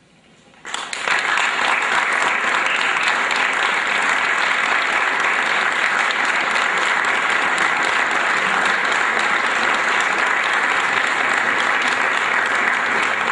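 An audience breaks into applause about a second in and keeps clapping steadily.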